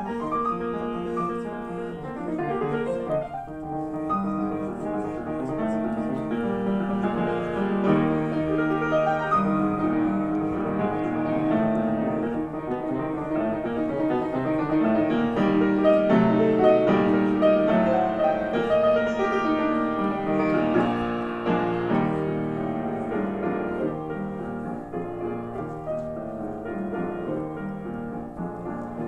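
Solo acoustic piano playing a classical piece, with quick rising runs in the first few seconds and full chords. It grows louder toward the middle and eases off near the end.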